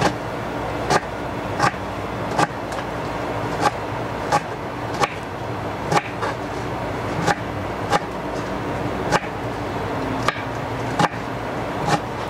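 Kitchen knife chopping food on a cutting board, a sharp knock roughly every second, over a steady low hum.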